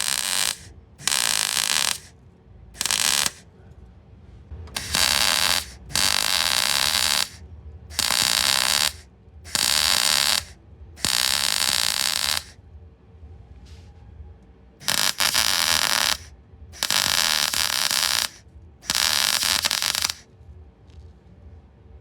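MIG welder stitch-welding a steel repair panel on a car sill in about eleven short bursts of steady crackle, each around a second long, with brief pauses between.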